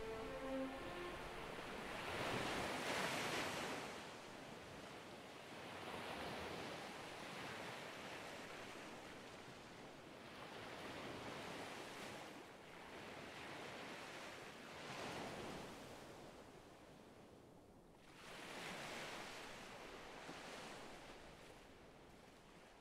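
Rushing noise on the soundtrack swells and ebbs every few seconds, like surf, and thins out toward the end. A held musical chord dies away in the first second.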